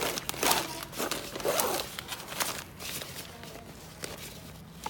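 Handling noise from a suitcase's lock compartment: a run of short rasps, rustles and small clicks, busiest in the first two seconds, then a few scattered clicks.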